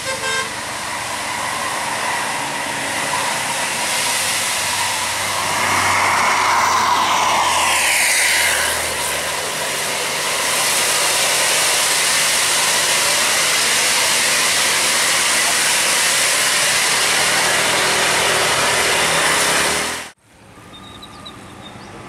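A tour bus passing close round a sharp bend: loud, steady engine and road noise, with a horn sounding for a couple of seconds about seven seconds in. The noise stops abruptly near the end.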